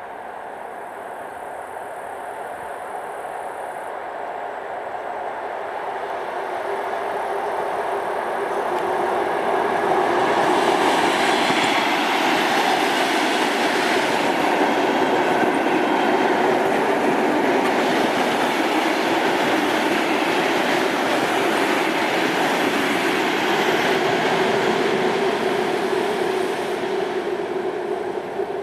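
A train approaching and passing close by: the rumble of wheels on rail builds over about ten seconds, stays loud with a steady hum, and begins to fade near the end.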